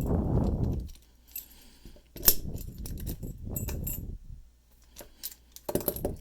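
Keys and metal padlock parts clinking while the lock is unlocked by hand to take out its core, with a sharp metallic click about two seconds in and more clicks near the end, over a rustle of handling.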